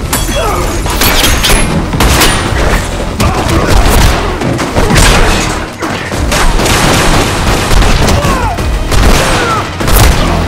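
Fight-scene sound effects: a fast, loud run of punches, body blows and crashing impacts with whooshes, starting abruptly.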